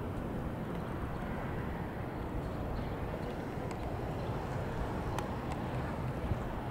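Steady low outdoor background noise with no engine note, with a few faint ticks near the end.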